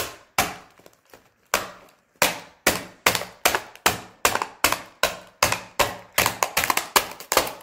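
A butter knife rapping again and again on a clear plastic container of hard Christmas candy, smashing the candy inside: about twenty sharp knocks, coming faster near the end.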